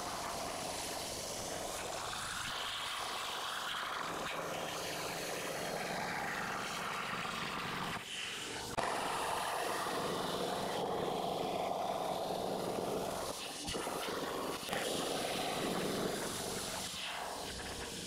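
Shop-made CNC plasma cutter cutting steel plate: a steady hiss with short breaks about eight and fourteen seconds in.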